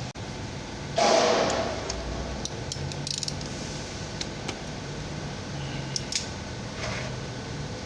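Hand tools working bolts on an automatic transmission: a loud scraping rasp about a second in as a bolt is loosened, then scattered sharp metallic clicks and taps.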